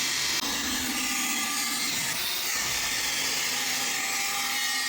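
Abrasive cut-off disc spinning at speed and cutting through a piece of square steel: a steady motor whine with a dense, even hiss from the cut.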